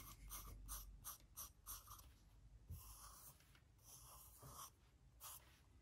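Faint pen strokes scratching on drawing paper, short irregular strokes a few times a second.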